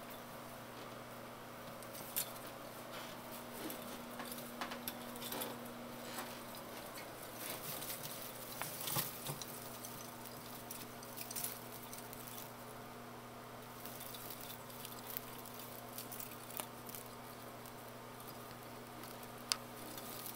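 Soft rustling and scattered light clicks of an artificial Christmas tree's branches and ornaments as a cat climbs and moves about inside it, the sharpest clicks about two and nine seconds in, over a faint steady low hum.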